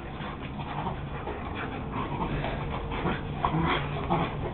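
Two dogs play-fighting, making short dog vocal sounds, with a few louder ones close together about three and a half seconds in.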